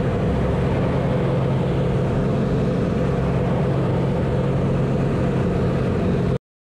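Pitts aerobatic biplane's engine and propeller running steadily, heard from inside the cockpit with a strong low drone and rushing wind noise. The sound cuts off abruptly near the end.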